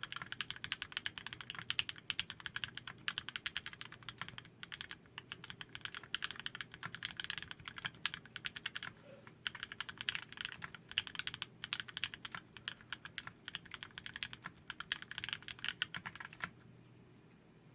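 Continuous rapid typing on a Dolphin Linger custom mechanical keyboard with Cherry MX Black linear switches on 57 g springs, mounted in an aluminium plate. The keystrokes stop about a second before the end.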